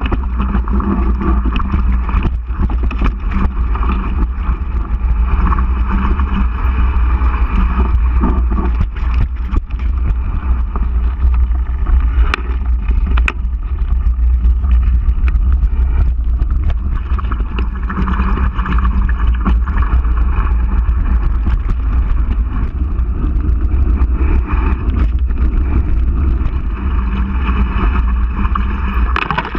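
Mountain bike riding fast down a dirt and gravel trail: heavy wind rumble on the camera's microphone, tyre noise and frequent rattling knocks as the bike goes over bumps.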